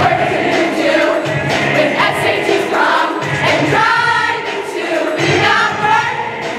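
Mash-up of pop songs playing loud, with group singing over a bass line.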